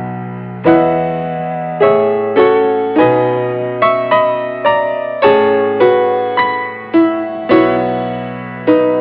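Background solo piano music: slow, gentle chords and single notes, each struck and left to fade.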